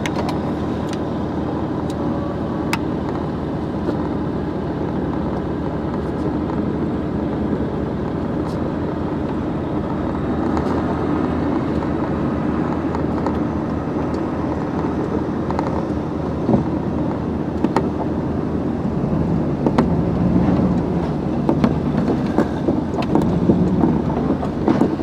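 A loaded pickup truck running and driving, a steady drone of engine and road noise. In the last several seconds it is joined by sharp knocks and rattles.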